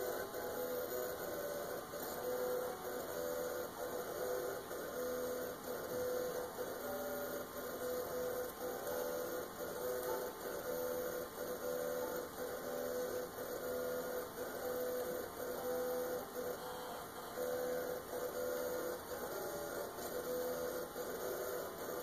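Old computer hard drive spinning and seeking while a game loads: a steady hum and whine with a fast, irregular clicking chatter of the drive heads.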